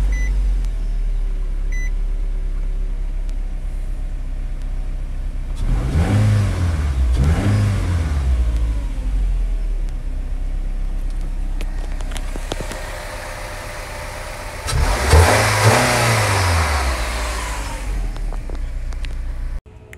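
Nissan Altima 2.5-litre four-cylinder engine with its stock intake, idling and then revved: two quick blips about six seconds in, then a longer, louder rev about halfway through before it settles back to idle. Heard from inside the cabin.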